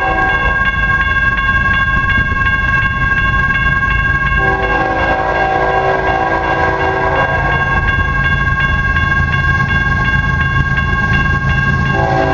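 BNSF grain train's diesel locomotive sounding its air horn: a chord that cuts off at the start, one long blast of about three seconds beginning about four seconds in, and another starting near the end. Under it is the low rumble of the passing train and a car alarm's steady high tone, pulsing quickly and regularly throughout.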